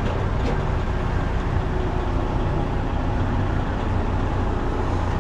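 Heavy diesel truck engine idling steadily, a low even hum.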